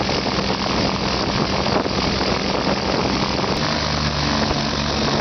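Twin piston engines of a Piper PA-34 Seneca II running steadily at idle with propellers turning, the engine note changing about three and a half seconds in.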